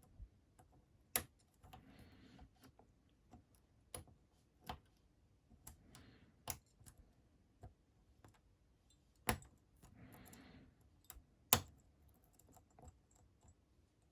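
Lock pick and tension wrench working the pin stack of a Master Lock 410 padlock: irregular light ticks and clicks as the pins are lifted, with a few sharper clicks, the sound of pins being pushed and setting at the shear line.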